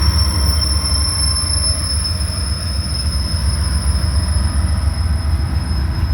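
Freight train rolling past: a loud, steady low rumble with a continuous high-pitched whine over it.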